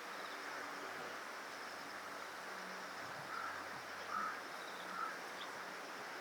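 Three short bird calls, a little under a second apart, over a steady outdoor background hiss.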